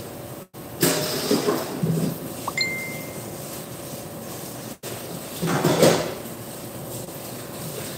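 Dishes and utensils clattering in a stainless steel sink during hand dishwashing, in two bursts, one about a second in and one about five and a half seconds in. The sound cuts out for a split second twice.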